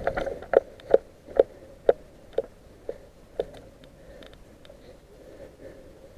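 Footsteps: about seven sharp steps at an even two a second, growing fainter and stopping about three and a half seconds in.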